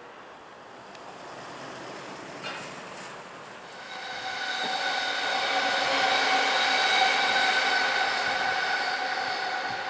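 Electric train passing, its motors giving a steady whine of several stacked tones. The whine swells from about four seconds in, is loudest around seven seconds, and eases off near the end.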